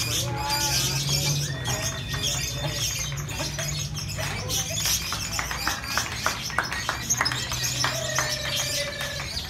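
Many caged lovebirds chirping and chattering at once, with a run of quick, sharp repeated notes in the second half, over a steady murmur of people's voices.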